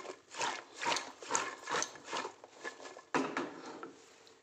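Chopped raw vegetables rustling and sliding in an aluminium pot as it is shaken, about two swishes a second, then a single knock about three seconds in.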